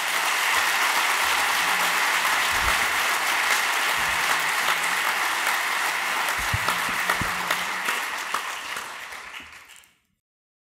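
Audience applause, a steady dense clapping that fades away after about eight seconds and then cuts off abruptly near the end.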